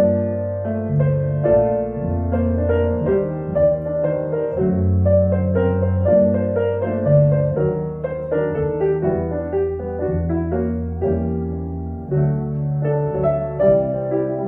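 Grand piano and double bass playing together: piano melody and chords over low bass notes, each held about a second.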